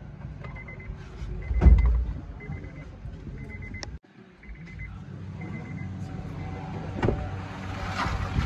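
A Honda City's warning chime beeping in short, rapid trains about once a second, stopping about five and a half seconds in. Handling noises run under it, with a loud thump about two seconds in and more knocks and rustling near the end.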